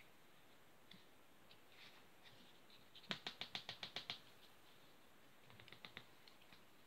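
A thin white stick making a quick run of about ten sharp clicks, roughly nine a second, about three seconds in, then a fainter few clicks near the end.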